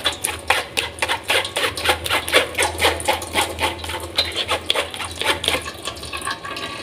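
Metal spoon scraping and stirring blended sweet-corn pulp in a plastic sieve, pressing the liquid through into a pot, in quick even strokes of about four a second.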